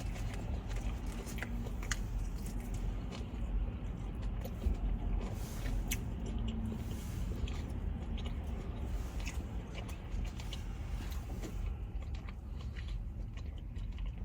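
A person chewing and biting fast food close to the microphone, with scattered small crunches and wet mouth clicks over a steady low hum.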